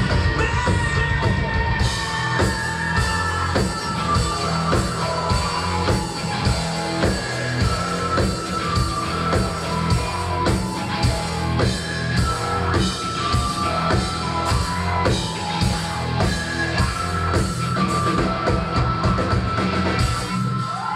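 Rock band playing live: guitar, bass and drum kit over a steady drum beat.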